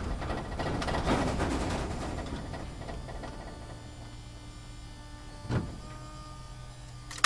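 Off-road vehicle heard from inside the cabin: rumbling and rattling over rough ground for the first couple of seconds, then easing to a steady engine hum. A single knock comes about five and a half seconds in, and a click near the end.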